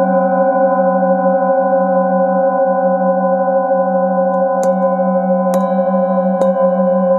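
Brass singing bowls ringing in a steady, layered hum with a wavering low tone. A bowl held in the palm is struck with a mallet three times about a second apart, past the middle, each strike adding a brighter ring on top.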